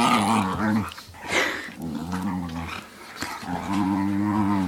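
A dog growling in play: three long, low rumbles, the last one the longest.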